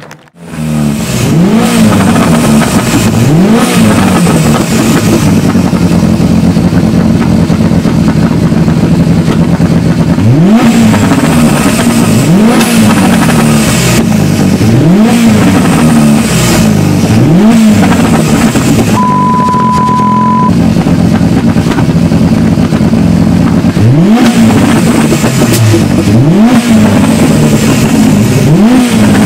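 Tuned Renault 5 Turbo 2's turbocharged four-cylinder free-revving at a standstill: repeated sharp throttle blips, each rev climbing and dropping back within about a second, over a steady idle, with pops and crackles from the exhaust.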